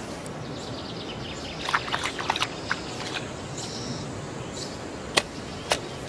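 Steady outdoor nature ambience: a soft hiss with a few short bird chirps, and two sharp clicks near the end.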